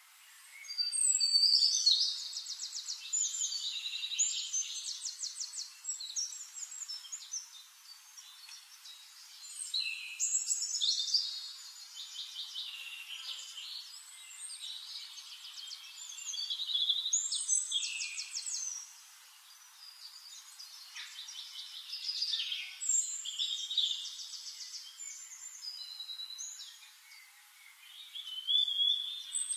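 A songbird singing long, varied phrases of high trills and whistles, a new phrase every six seconds or so with short pauses between.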